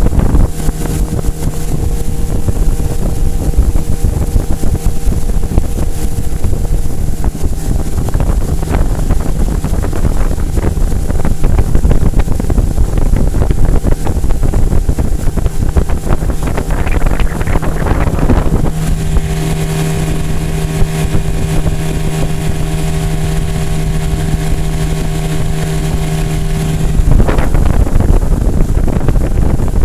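An 8 hp outboard motor on a small Gheenoe canoe-style boat running at a steady cruising speed. Wind rushes over the microphone in gusts, loudest in the middle and near the end.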